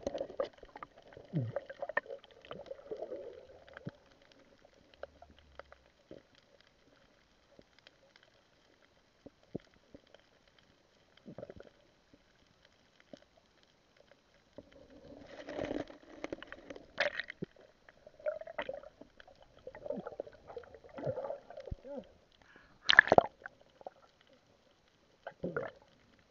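Muffled underwater sound heard through an action camera's waterproof housing: scattered clicks, knocks and bubbling as a diver handles a gill net and fish, with a sharp knock near the end the loudest.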